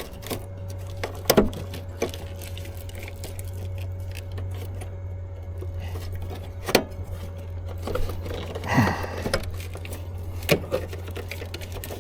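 Scattered sharp clicks and rattles of a wiring connector being handled and unplugged from the engine control module, over a steady low hum.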